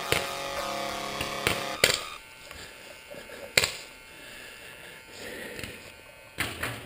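Paintball markers firing: about six sharp single pops spread unevenly, two of them in quick pairs. Background music ends about two seconds in.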